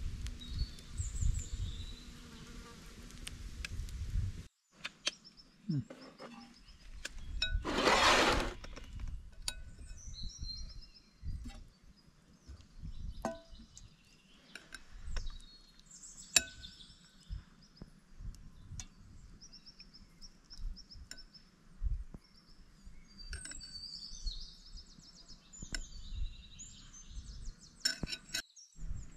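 Outdoor bush ambience: birds chirping in short high calls, with scattered sharp clicks and a brief rush of noise about eight seconds in.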